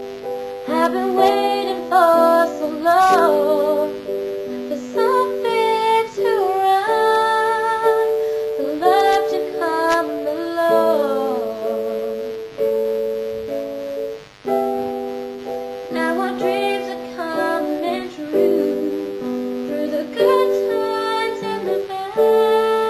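Music: a woman singing wordless, wavering vocal runs over held keyboard chords, in short phrases with brief gaps between them.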